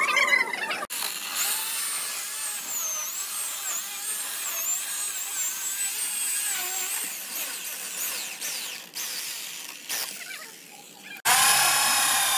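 Corded electric chainsaw running and cutting through a weathered wooden block, its pitch wavering as the load changes, with short dips near the end. About a second before the end it gives way abruptly to an electric drill boring into a wooden plank, louder and steadier.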